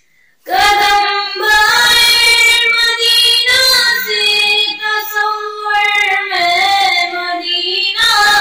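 A young girl's solo voice singing an Urdu naat into a microphone, coming in about half a second in. She holds long notes that waver and bend in pitch, with short breaths between phrases.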